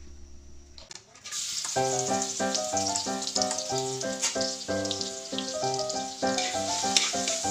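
Minced garlic frying in hot oil in a wok: a steady sizzle that starts about a second in. Background music with evenly paced notes comes in just after and plays along with it.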